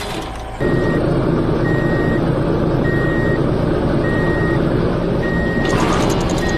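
Heavy construction vehicle's engine running with its reversing alarm beeping, one high beep about every 1.2 seconds, six in all. The engine starts up about half a second in, and a burst of hiss joins near the end.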